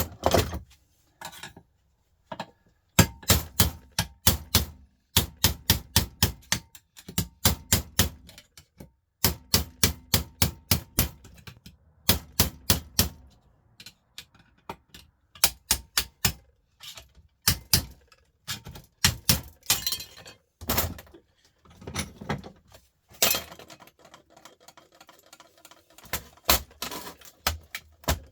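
Quick runs of sharp clicks and knocks with short pauses between them, from hand tools working on the metal parts of a fluorescent light fitting as it is taken apart.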